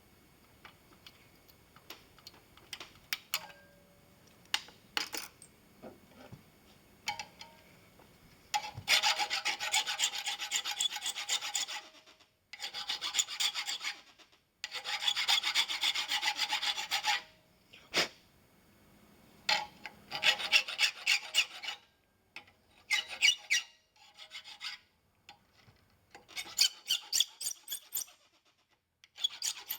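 Hand file rasping on brass sheet in several runs of rapid strokes, each run lasting a couple of seconds, with light clicks and taps of handling in the first few seconds.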